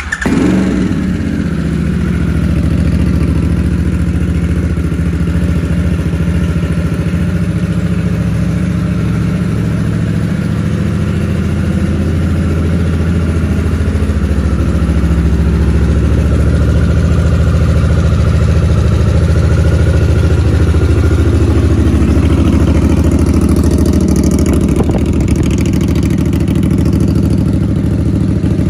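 Harley-Davidson Sportster S's 1250 cc liquid-cooled V-twin, breathing through a two-into-one TBR exhaust, fires up right at the start and settles into a steady idle.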